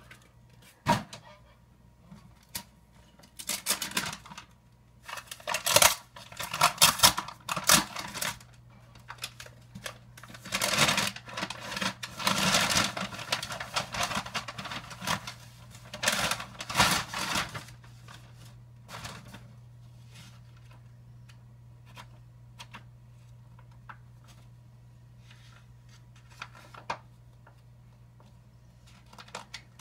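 Packaging being handled and opened: rustling, crinkling and sharp clicks in bursts, busiest in the first half, then only scattered light clicks.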